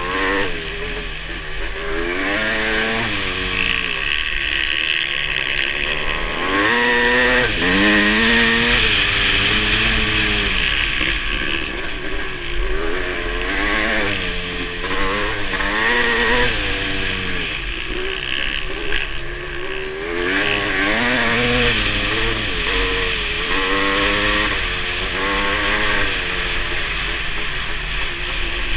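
Kawasaki KX500's two-stroke single-cylinder engine revving hard, its pitch rising and falling again and again as the rider accelerates, shifts and backs off around the ice track, heard from on board the bike.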